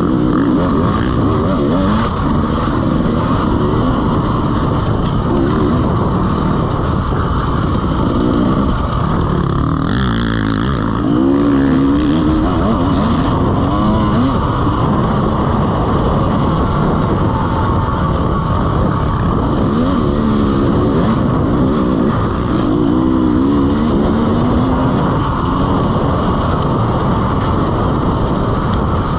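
2017 KTM EXC 300's two-stroke single-cylinder engine being ridden hard, its pitch rising and falling again and again as the throttle is worked, with a strong surge about ten seconds in.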